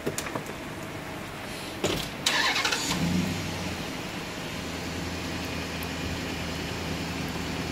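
A thump, then an SUV's engine cranks and catches a little over two seconds in and settles into a steady idle.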